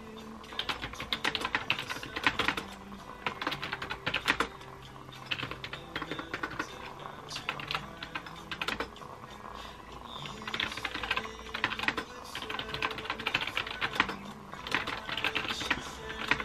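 Typing on a laptop keyboard, the keys clicking in quick bursts separated by short pauses, with piano music playing underneath.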